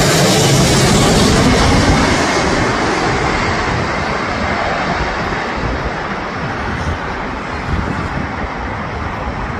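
Jet noise from a Boeing 767-338ER's twin turbofan engines as the cargo jet passes low overhead on final approach. The rushing roar is loudest at first and fades steadily as the plane draws away toward the runway, the hiss dying off first and a low rumble lingering.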